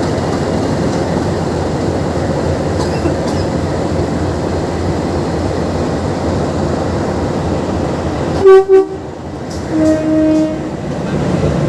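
Diesel locomotive engine running with a steady rumble. About eight and a half seconds in come two short, loud horn blasts, followed a second later by a quieter, longer lower tone.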